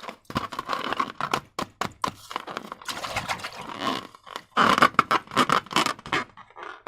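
Hands squishing and stretching slime: a rapid, irregular run of sticky clicks and wet squelches, with a louder stretch of squishing about two-thirds of the way in before it tapers off.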